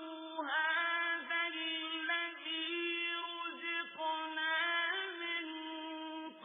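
A male Quran reciter's voice in melodic mujawwad recitation, holding one long drawn-out note without a break, with small ornamental turns in pitch.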